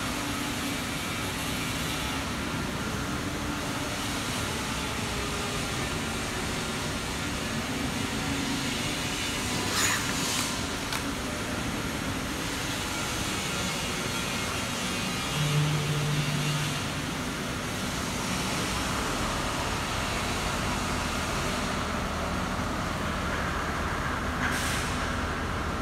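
Steady mechanical noise of an overhead crane travelling with its suspended steel-plate load through a steel-works hall. A short low hum sounds about fifteen seconds in, and two brief sharper sounds come at about ten and twenty-four seconds.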